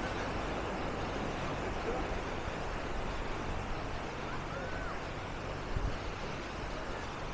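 Beach ambience: a steady wash of surf and wind with distant people's voices, and a couple of faint rising-and-falling calls about four and a half seconds in.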